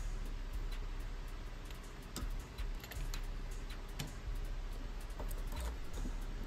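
Scattered small clicks and taps of airsoft gun parts being handled during reassembly, over a steady low hum.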